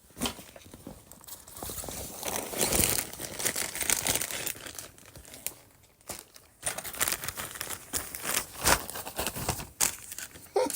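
Packaging crinkling and rustling in irregular bursts as a parcel is handled and torn open, with a short lull about halfway through.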